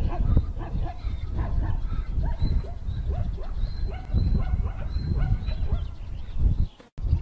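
Many short high animal cries in quick succession, each bending in pitch, over a low rumbling noise; the sound drops out briefly just before the end.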